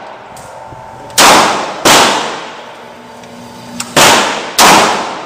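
Four pistol shots from a Glock 17 (9mm), fired in two pairs: two shots under a second apart, then two more about two seconds later. Each bang rings out in a long echo off the walls of the indoor range.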